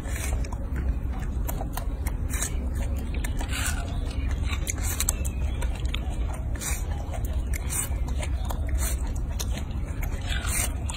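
A young macaque biting and chewing a slice of watermelon, making irregular wet, crunchy bites over a steady low rumble.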